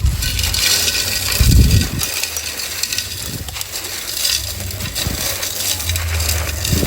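A dried, molded 'white glitter' texture shape being crumbled by hand: steady crisp crackling and crunching with many small pieces breaking and falling, and a heavier crunch about a second and a half in and again near the end.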